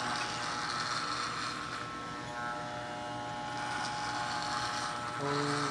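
Corded electric hair clippers running with a steady buzz as they cut through a man's hair close to the scalp.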